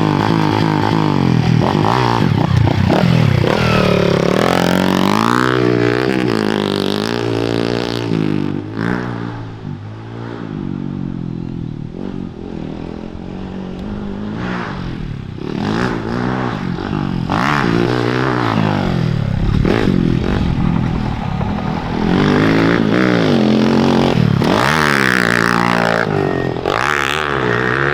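110cc pit bike engine revving hard and easing off again and again as it is ridden round a dirt track, its pitch sweeping up and down with the throttle. It is loudest at the start and again from about two-thirds of the way in, with a quieter spell in between.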